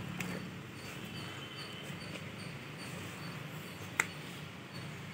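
Faint outdoor background: a low steady hum with soft high ticks about twice a second, and one sharp click about four seconds in.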